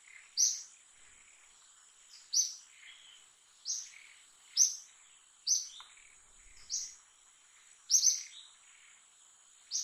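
A bird repeating a short, high chirp that slurs down in pitch, about once a second, once in a quick double near the end.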